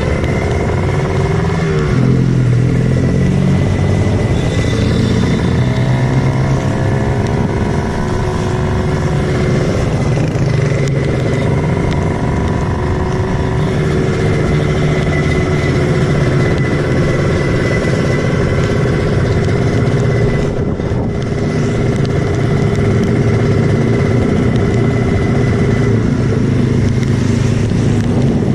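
Kawasaki Ninja 150 two-stroke motorcycle engine running loud, its pitch rising and falling with the throttle.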